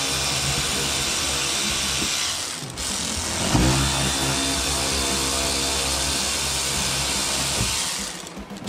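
Matco cordless electric ratchet spinning T15 Torx screws out of a truck's fender liner, running in two spells: a steady whine for about two seconds, then a second run that starts about three and a half seconds in with a rising whine and stops near the end.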